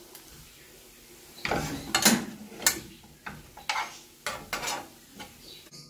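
Metal spoon stirring and scraping chicken masala around a frying pan: after a quiet start, a run of irregular scrapes and clinks begins about a second and a half in.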